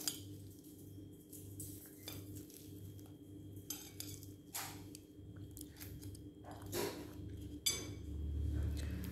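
Knife and fork clinking and scraping on a plate while cutting a fried sausage: scattered sharp clicks, a few of them louder in the second half.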